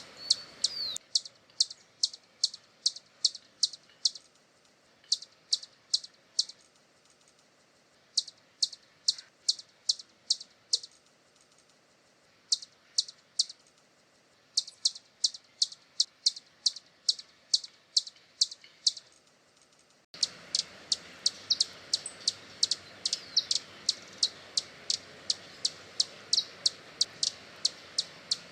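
Hummingbird calling: a long series of sharp, high chip notes, about three a second, in runs broken by short pauses. About two-thirds of the way through, the background hiss steps up.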